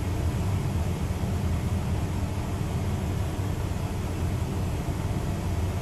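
Steady low rumble and hiss outdoors, with no distinct events, tones or train sounds.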